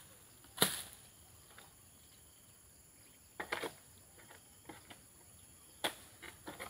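Insects chirring steadily at a high pitch, with a few short sharp noises: one about half a second in, another near the middle, and a quick cluster near the end.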